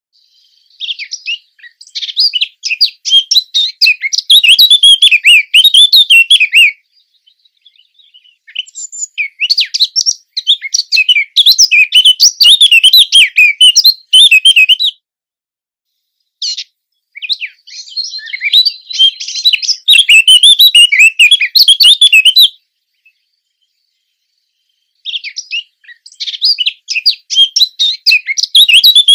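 Blackcap singing: fast, high warbling song in phrases of about six seconds, four times over, with pauses of one to two seconds between.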